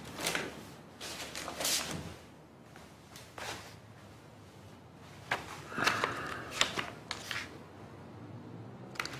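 Pages of a bound notebook being leafed through: a few short paper rustles and soft knocks, the busiest stretch a little past the middle.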